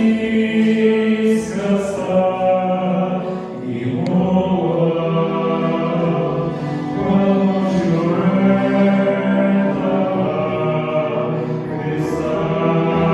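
Choir singing a Russian Christian hymn in slow, sustained phrases.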